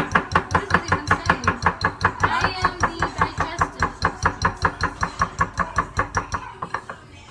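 Cake batter being beaten by hand in a mixing bowl: a fast, even run of clinks of the utensil against the bowl, about seven a second, stopping near the end.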